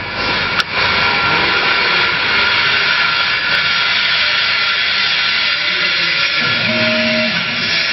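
Acctek AKG6090 mini CNC router's spindle spinning at high speed and engraving a plate, a steady high whine with a hiss of cutting. There is a sharp click about half a second in, after which it runs louder.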